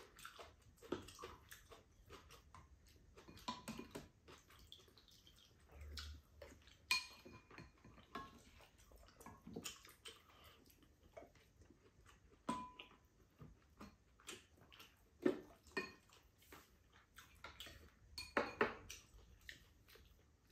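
Spoons and chopsticks clinking and scraping against ceramic bowls and a pan during a meal: scattered light taps, some with a brief ringing tone, at irregular intervals.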